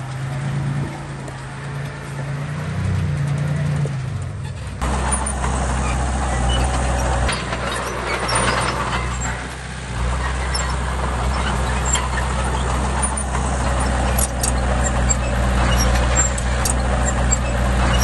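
Diesel engine of heavy earthmoving machinery running steadily, its low drone changing character about five seconds in.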